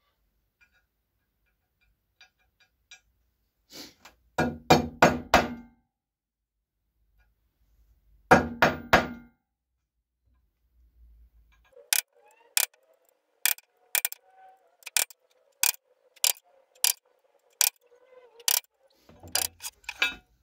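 Hammer tapping a centre punch into a steel plate to mark hole positions before drilling. There are two short bunches of heavier knocks, then from about halfway a run of sharp, evenly spaced taps, roughly one every 0.7 s.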